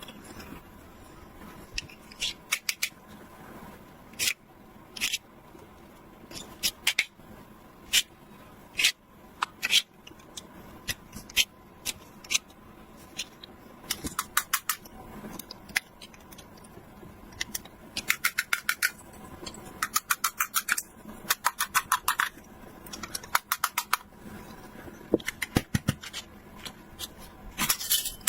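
Toy packaging being cut and handled: sharp clicks and snips, some coming in quick runs of several a second.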